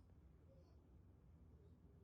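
Near silence: only a faint low room hum.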